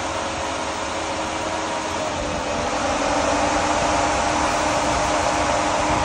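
Electric radiator cooling fans coming on under the adjustable fan controller: a steady rush of air with motor hum that grows louder about two to three seconds in as the fans spin up.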